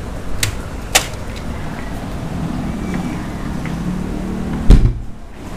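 Chest freezer lid shut with one heavy thump near the end, after two sharp clicks of handling about half a second and a second in, over a steady low hum.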